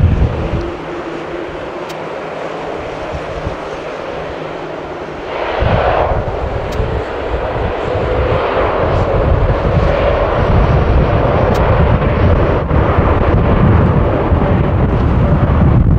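Jet airliner engines, a steady rush that swells sharply about five seconds in and stays loud, with wind rumbling on the microphone.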